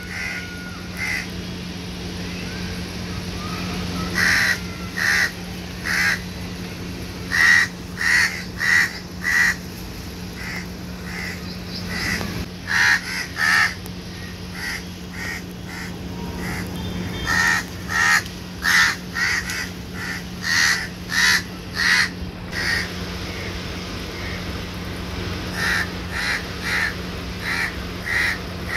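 Crows cawing repeatedly, in clusters of short, harsh calls, over a steady low hum.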